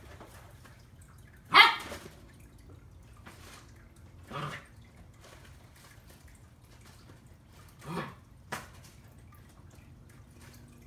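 Siberian Husky giving three short play barks, the loudest about one and a half seconds in, with a sharp click just after the last one.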